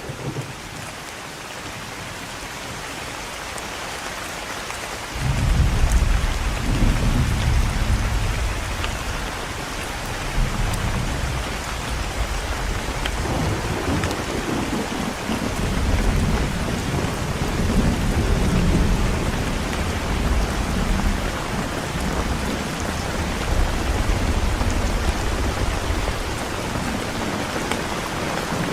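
Steady rain hiss, joined about five seconds in by a low rumble of thunder that keeps rolling, swelling and fading through the rest.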